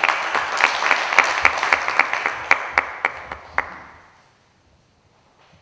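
Audience applauding, with a few sharp single claps standing out. The applause dies away about four seconds in.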